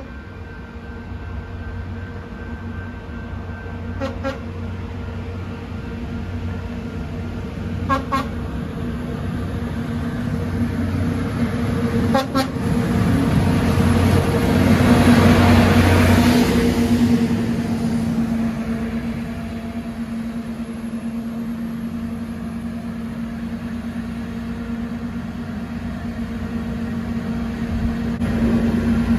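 Track maintenance train running past on the rails, its engines and machinery growing loud about halfway through as the yellow equipment cars go by, then easing off, over a steady low engine hum. Three short sharp sounds come about four seconds apart in the first dozen seconds.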